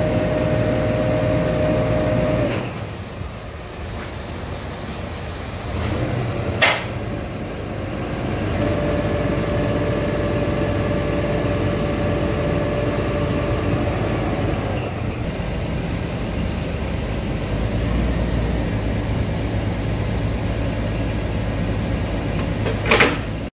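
Scania P380 truck's diesel engine running steadily while its hydraulic pump whines, working the hooklift arm. The whine stops about two and a half seconds in and returns from about nine to fifteen seconds. Two short sharp noises come about seven seconds in and just before the end.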